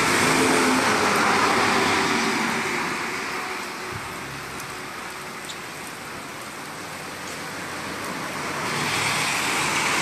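Steady rushing roar of a river in flood and the floodwater pouring over the land beside it. It eases off in the middle and swells again near the end.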